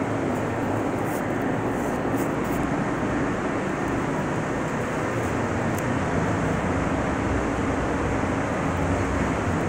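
Steady rushing air noise of a spray paint booth's ventilation fans running.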